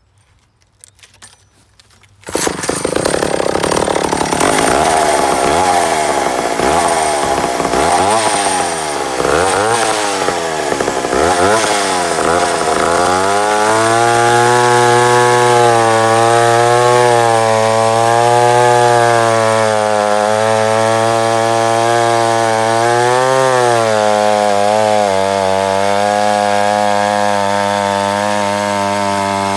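Vintage McCulloch 1-50 two-stroke chainsaw engine starting up loud about two seconds in. For about ten seconds its pitch swings up and down repeatedly; then it runs at a high, steady pitch that wavers slightly, with a short rev-up before it settles a little lower near the end.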